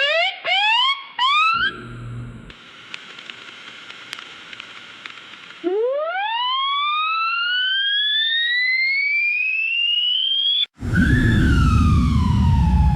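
Synthesized sci-fi lunar lander touchdown sound effect. A run of quick rising electronic chirps leads into a faint steady tone, then a long rising whine that cuts off suddenly. A loud rumbling rush follows, with a falling tone over it.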